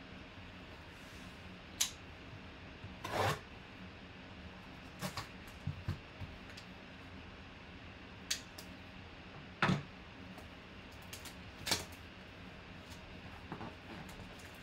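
Hands handling a sealed cardboard trading-card box and tearing into its plastic shrink wrap: scattered taps, scrapes and crinkles every second or two, one a longer rustle about three seconds in.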